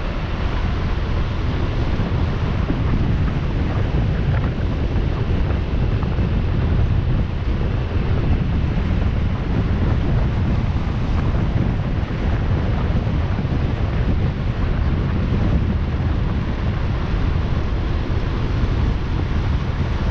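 Wind rushing over the microphone of a moving motorcycle: a steady low rumble that stays level throughout.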